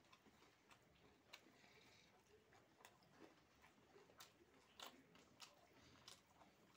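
Faint, irregular wet clicks and squishes of eating by hand: chewing a mouthful, then fingers mashing pakhala (rice soaked in water) in a steel bowl, with the loudest squishes in the second half.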